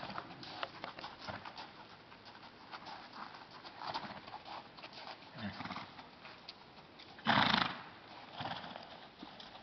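Gypsy Vanner horse moving about close by, with irregular hoof knocks and clicks, and one loud, short, breathy burst about seven seconds in.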